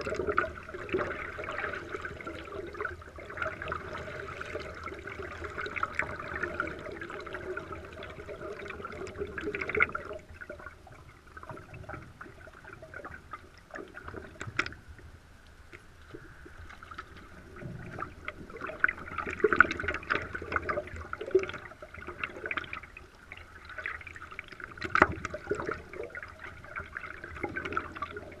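Water lapping, trickling and splashing against the nose of a stand-up paddleboard as it glides through calm river water. It goes quieter for several seconds in the middle, then picks up again with sharper splashes.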